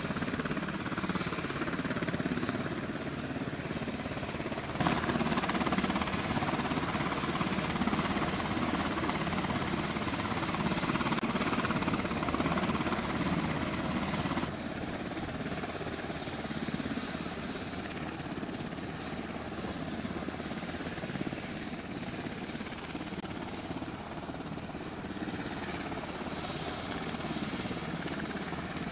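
Navy MH-60 Seahawk helicopter running on a carrier flight deck, rotors turning: a steady turbine and rotor noise. It gets louder about five seconds in and drops back about halfway through.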